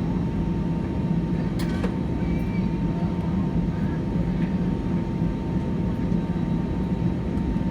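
Steady cabin hum inside an Airbus A319 on the ground, with a thin steady whine above it. There is a sharp click about two seconds in and a few faint ticks.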